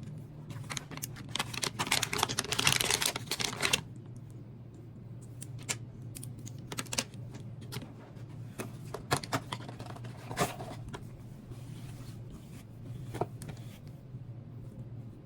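Rustling and clicking handling sounds: a dense rustle in the first few seconds, then scattered sharp clicks, over a steady low hum.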